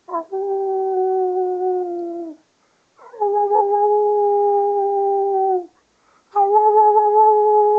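Miniature schnauzer howling: three long, steady howls of about two seconds each, each starting with a short downward slide and dropping off at the end.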